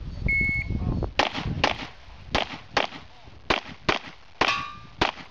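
Electronic shot-timer beep, then Glock pistol shots fired in quick pairs, about eight in all, with a metallic clang ringing after one of the later shots.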